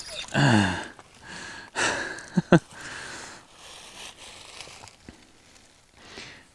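A man's long sigh of relief, falling in pitch, about half a second in, after landing a fish he nearly lost. Then quieter breathing and a couple of short sharp sounds.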